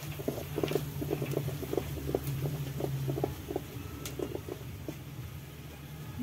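Sliced onions and red chili masala sizzling in oil in an aluminium kadai, with irregular ticks and scrapes of a wooden spatula stirring, over a steady low rumble.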